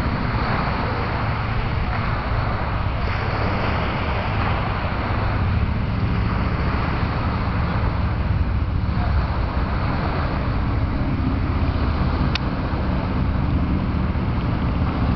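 Steady low outdoor rumble of wind on the microphone over distant road traffic.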